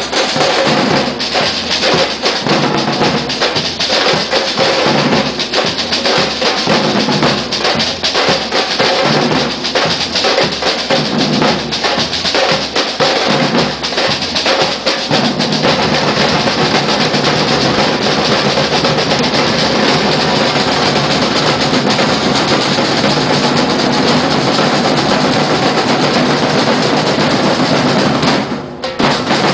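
Batucada drum group playing together: silver surdo bass drums and other drums beaten with mallets and sticks in a driving street-carnival rhythm. From about halfway the separate beats merge into a dense, continuous drumming, which dips briefly near the end.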